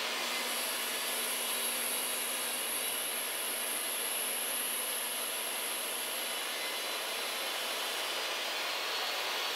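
Jobsite table saw running steadily while ripping a pine board lengthwise, with a thin high whine from the blade in the wood that fades out near the end as the cut finishes.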